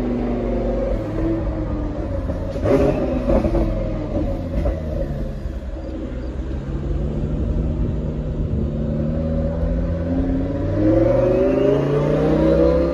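Twin-turbocharged Lamborghini Huracán V10 heard from inside the cabin, running under way with a few sharp knocks about three seconds in, then rising in pitch as the car accelerates over the last few seconds.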